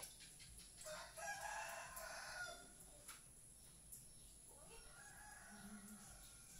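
Rooster crowing: one long crow about a second in, then a fainter second crow after about four and a half seconds.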